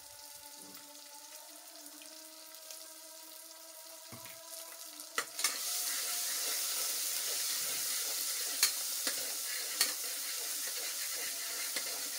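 Onion-tomato masala sizzling in hot oil in an aluminium pressure cooker as it is stirred with a steel ladle. The loud sizzle starts about five seconds in, after a quieter stretch, and the ladle clinks against the pot a few times.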